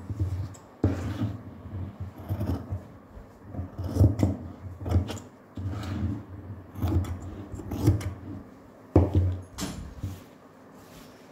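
Large steel tailor's scissors cutting cloth in irregular snips, with the blades clicking and the fabric rustling as it is handled and smoothed on the table. A few sharp knocks come about a second in and twice near the end.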